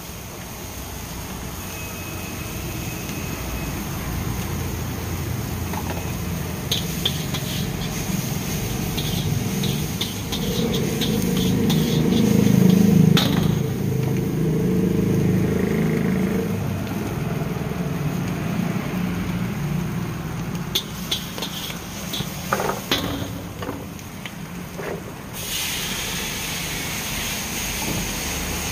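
Stir-frying in a large iron wok over a gas burner: a steady low burner roar, with bursts of clicks from a metal spatula against the wok. Near the end a sudden, louder sizzle starts as liquid goes into the hot wok and steams.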